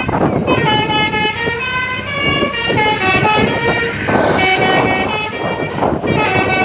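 Basuri 'telolet' multi-tone horn playing its melody: several horn notes sound together and jump from pitch to pitch in short repeated phrases, with brief gaps between them.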